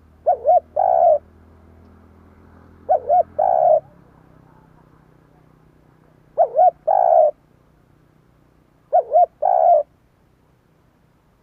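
Spotted dove cooing: four phrases a few seconds apart, each two short quick notes followed by a longer coo.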